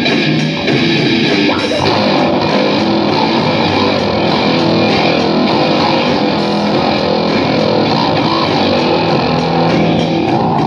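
Loud rock music led by guitar.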